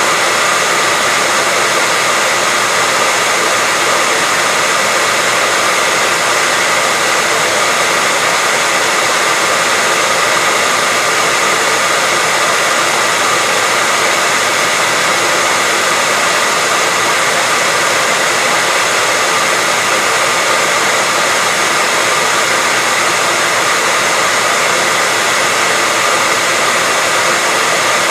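Hair dryer running steadily: an even, unbroken rush of air with a faint high whine from the motor and fan.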